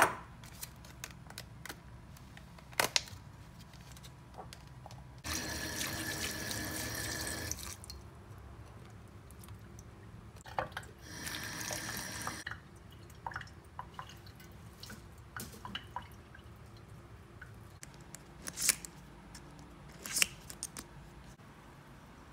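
Kitchen tap running into a glass bowl of raspberries in a stainless steel sink, twice for a couple of seconds each, rinsing the berries. Scattered light clicks and knocks of handling between and after.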